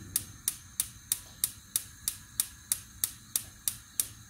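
Gas stove's electric spark igniter clicking rapidly and evenly, about three clicks a second, over a low rumble.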